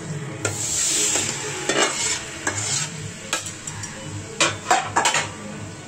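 Wet grated-coconut mixture with sugar, jaggery and milk sizzles as it is tipped into a hot metal kadai, about half a second in. It is followed by a series of scrapes and knocks of utensils against the bowl and pan as the mixture is scraped out and pushed about.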